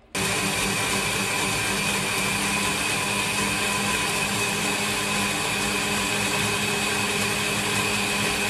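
Countertop jug blender switching on and running steadily at one speed, with a constant motor hum and high whine, puréeing toasted bread and fried garlic with spinach broth into a liquid.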